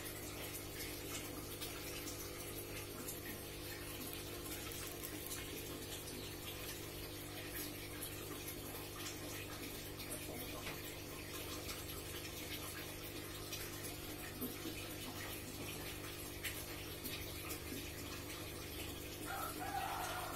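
Aquarium aeration running: steady bubbling water over the even hum of an air pump. Near the end a cat meows once.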